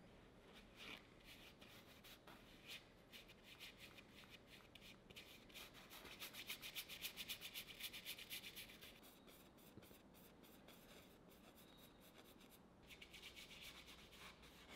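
Faint bristle brush scrubbing oil paint onto stretched canvas in quick short strokes, busiest and loudest around the middle, with another brisk spell of strokes near the end.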